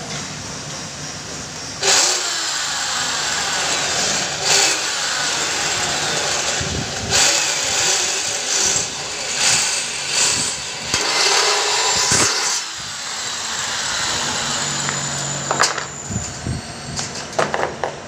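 Electric hand drill boring through the metal wall of a cable tray, starting suddenly about two seconds in and running in several surges until about twelve seconds. A few sharp metallic clicks near the end.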